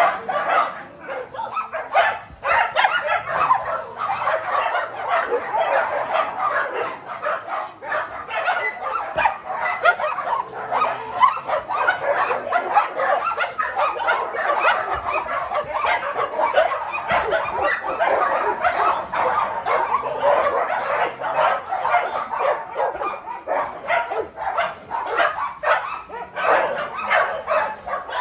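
A pack of many dogs barking and yipping over one another without a break, a crowded kennel chorus with some whining mixed in.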